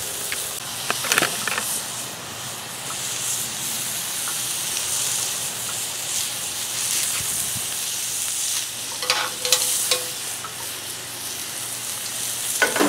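T-bone steak searing on a very hot cast iron griddle pan over a propane camp stove: a steady high sizzle, with a few sharper crackles about a second in, around nine seconds and near the end.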